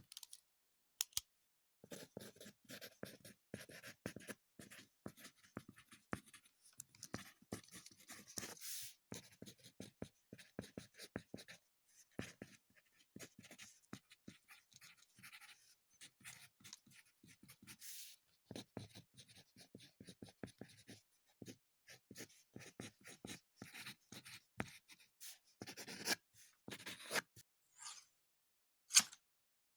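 Writing on paper: a pen or pencil tip scratching across the page in quick, irregular strokes, fairly faint, with a single sharp click near the end.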